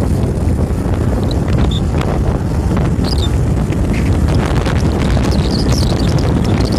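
Wind buffeting the microphone of a camera carried on a moving vehicle, a loud steady rush with the low rumble of the vehicle's engine and tyres underneath.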